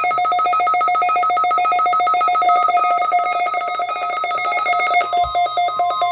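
NOAA Weather Radio warning alarm sounding during its weekly test: a loud, rapidly trilling electronic alarm tone. A steady tone joins it about five seconds in.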